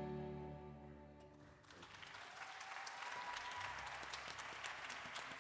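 The final chord of a keyboard and string ensemble fades away. About a second and a half in, the audience breaks into applause, which carries on steadily.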